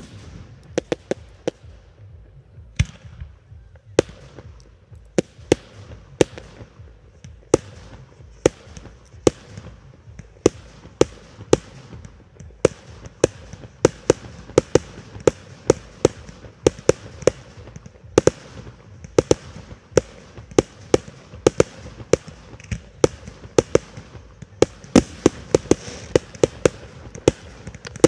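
Fireworks display: aerial shells bursting in sharp bangs, one after another at irregular intervals of about a second or less, coming thicker near the end.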